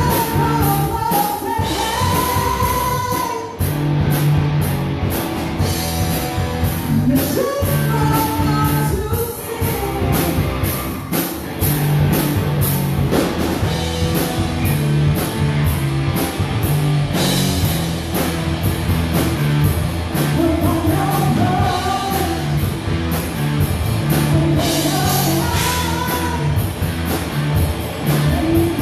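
Live rock band playing a song: drum kit and electric guitars under a woman's lead vocals, which come in sung phrases over a steady beat.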